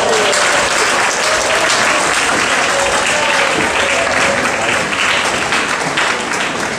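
Spectators applauding, with some cheering voices mixed in, easing off slightly near the end.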